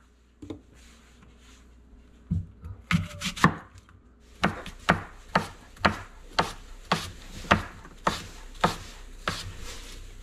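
Kitchen knife slicing apples on a cutting board, each cut ending in a sharp knock of the blade on the board. A few scattered cuts start about two seconds in, then steady slicing at about two cuts a second.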